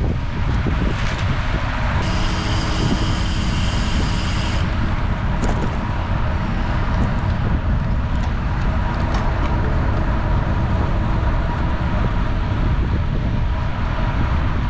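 Wind rushing over the microphone and road noise from a road bike riding at speed in a group. About two seconds in, a steady buzzing tone joins for about two and a half seconds and cuts off suddenly.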